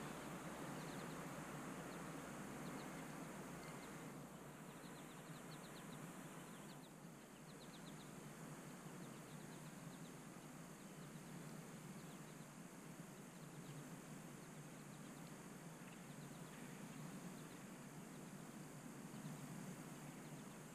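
Quiet outdoor ambience: a steady faint hiss with faint bird chirps in short quick series during the first half.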